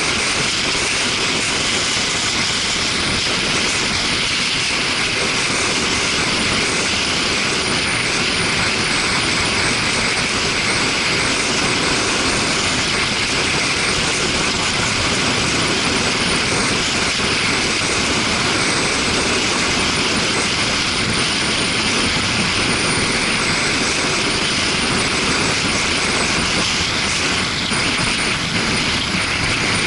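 Steady wind rush over an action camera on a Suzuki GW250 Inazuma motorcycle riding at road speed, with the bike's engine running under it.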